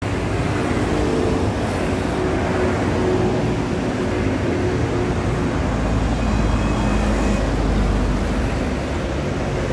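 Street traffic: steady noise of passing motor vehicles with a low rumble and engine hum.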